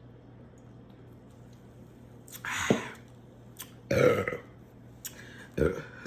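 A woman burping aloud, in short bursts between about two and six seconds in, the loudest about four seconds in.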